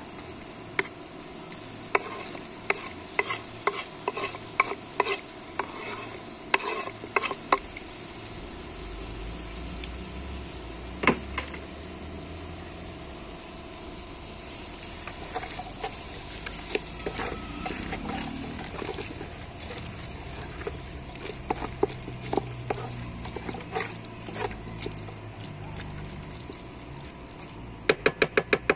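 Spoon stirring a pot of chicken stew and knocking against its sides over a steady sizzle, with a quick run of taps near the end.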